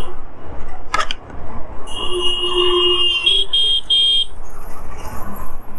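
A vehicle horn honking in traffic: one long beep, then three short beeps slightly higher in pitch, over steady road and wind noise. A sharp click comes about a second in, before the honking.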